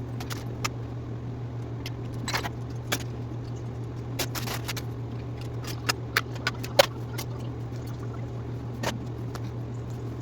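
Scattered light clicks and clatters of plastic ball pit balls and toys being picked up by hand, the sharpest about two-thirds of the way through, over a steady low hum.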